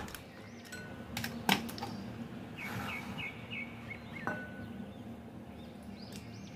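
Sharp clicks and knocks of a steel mixer-grinder jar's lid clamps being unlatched and the jar handled, with a tap and brief ring against a glass bowl about four seconds in as the ground nuts are poured out. A short run of faint, high bird chirps comes between.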